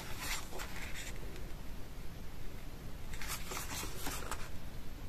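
Photobook pages being turned and smoothed by hand: soft paper rustles near the start and again about three seconds in.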